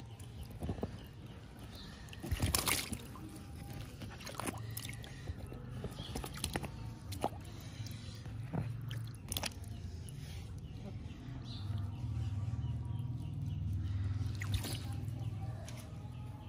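Shallow water sloshing and splashing in a small inflatable paddling pool as wet kittens are rubbed and moved about in it, with scattered sharp splashes. A low rumble comes up for a few seconds near the end.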